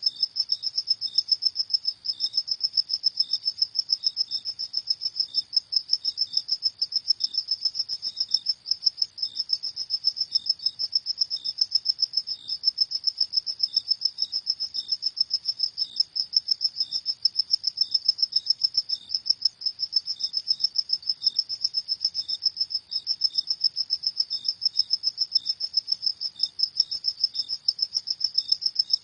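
Crickets chirping in a fast, steady, high-pitched pulsing trill, with a second, slower series of chirps just below it.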